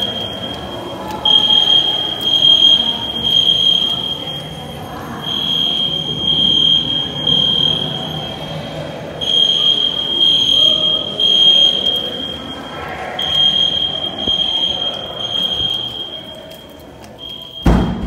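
EST fire alarm horns sounding a steady high tone in groups of three pulses about every four seconds, the temporal-3 evacuation pattern, during a fire alarm system test. A loud thump comes near the end.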